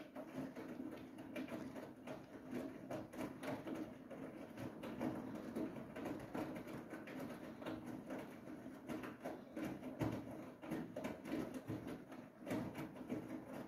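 Siemens iQ700 washing machine in its final spin, the drum turning with a steady hum under an irregular patter of small clicks and knocks.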